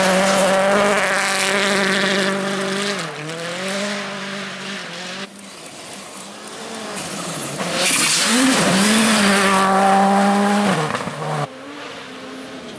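Rally car engines running hard at high, steady revs, with brief dips in pitch as the drivers lift or shift. The sound cuts off suddenly twice, and a second car comes through loud before cutting off near the end.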